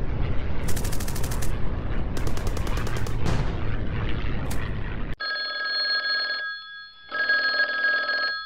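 Battle sound effect: a heavy rumble with bursts of rapid machine-gun fire, three times. About five seconds in it cuts off abruptly to an old telephone bell ringing twice, ring, pause, ring.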